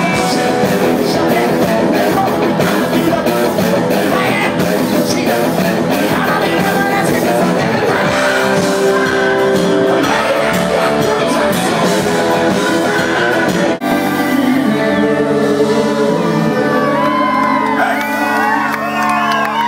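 Live rock band with a male lead singer: loud singing over electric guitars, bass and drums. About 14 seconds in the sound drops out for an instant, then the band holds long ringing chords as the song winds down, with high wavering whoops from the crowd near the end.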